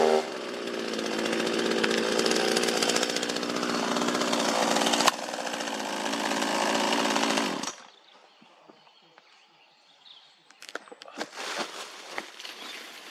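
Chainsaw running and cutting into a tree stump, with a sharp crack about five seconds in. The saw stops suddenly about two-thirds of the way through, then a few faint knocks follow.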